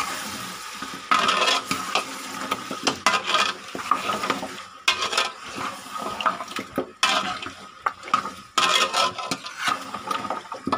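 Steel spoon stirring a heavy load of mutton bones and meat in a steel pot: irregular scrapes and clinks of metal on metal as the pieces are turned, over a light sizzle of the onion-and-paste masala frying beneath.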